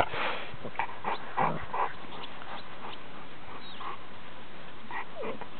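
Five-week-old Cane Corso puppies giving short yips and whimpers as they play and tussle with their mother, several quick calls in the first two seconds and a few more near the end.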